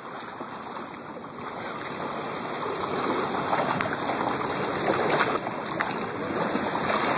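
Water rushing and splashing, growing louder toward the end, with a few short splashy crackles.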